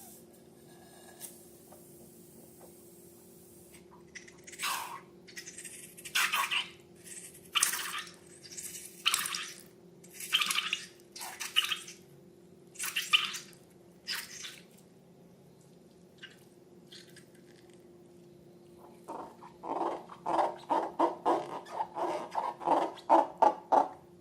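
Slime being squeezed and worked by hand: separate wet squelches about one every second and a half, then a quicker run of sticky popping clicks near the end.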